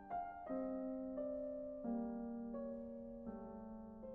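Soft background piano music, slow sustained notes and chords changing about once a second.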